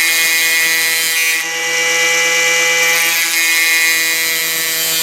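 Angle grinder with a thin zipcut cut-off disc running with a steady motor whine while a steel twist drill bit is sharpened against the disc. The high grinding hiss eases about a second and a half in and comes back strongly about three seconds in.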